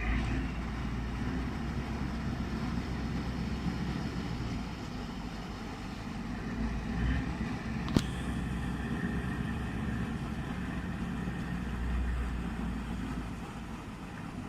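Diesel engine of the small motor vessel KS-110-48 running steadily under way on sea trials, a deep even rumble. A single sharp click or knock comes about eight seconds in.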